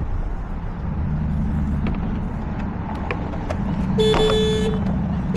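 A car horn sounding in a long blast about four seconds in, part of a run of evenly spaced blasts, over a steady low rumble.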